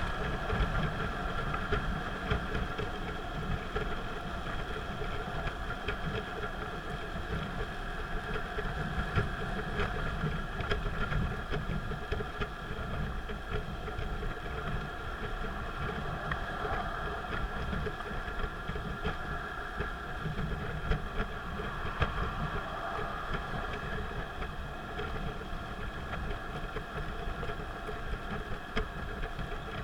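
Car driving on an expressway, heard from inside the cabin: steady engine and road noise with a few short clicks.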